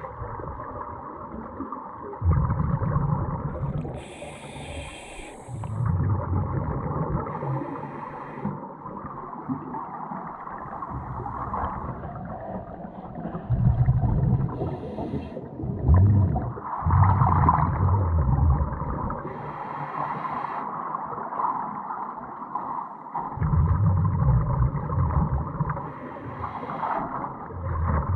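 A scuba diver breathing through a regulator underwater: several breaths, each a short hiss of inhalation and then a rumbling gush of exhaled bubbles, repeating every few seconds.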